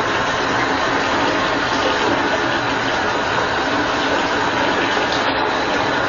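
Running water pouring steadily into a bathtub, an even, unbroken rush.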